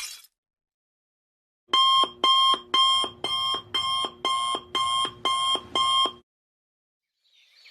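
Digital alarm clock sound effect: ten quick, identical electronic beeps, about two a second, then it stops.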